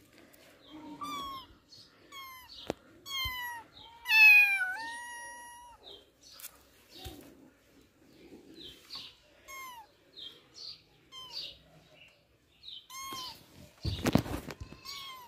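A tabby kitten mewing over and over: short, high calls that mostly fall in pitch, the loudest and longest about four seconds in. A brief burst of rustling handling noise comes near the end.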